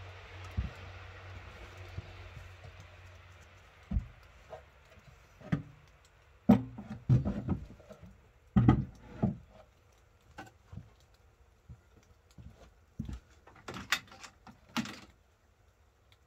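A wooden body cover being lifted and set down over a battery-powered miniature locomotive: a series of separate wooden knocks and thumps, loudest about six to nine seconds in, with lighter clicks and taps after. A low steady hum fades out during the first few seconds.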